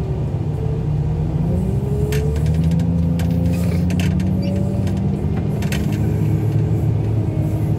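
Loader's engine running under load as it drives carrying a junk car on its forks, speeding up about one and a half seconds in and easing off near the end. Scattered clanks and rattles sound over it.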